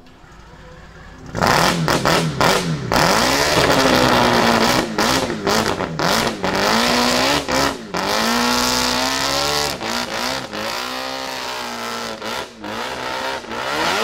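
Twin-turbo four-rotor rotary engine of a Nissan Silvia S15 race car fires up about a second and a half in, then is blipped and revved at a standstill with a lumpy, wavering idle between blips and brief sudden cut-outs. Near the end the revs rise as the car pulls away.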